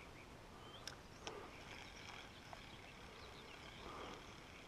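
Faint outdoor quiet with scattered short bird chirps, and two light clicks about a second in.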